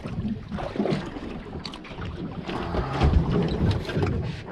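Wind rumbling unevenly on the microphone aboard a small boat at sea, strongest about three seconds in, with a few light knocks.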